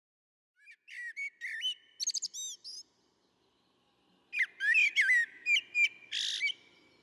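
A songbird singing two short phrases of rapid, varied chirps and whistles, the second starting after a pause about four seconds in.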